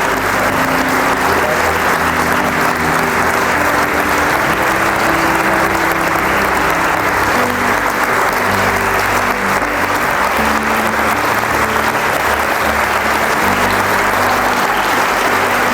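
Audience applauding steadily, with background music of held low notes underneath.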